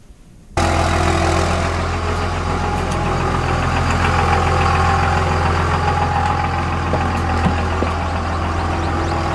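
Dodge Ram 2500's 24-valve Cummins inline-six turbo diesel idling steadily, cutting in suddenly just under a second in after a moment of quiet room tone. The truck runs at idle despite its failed fuel lift pump.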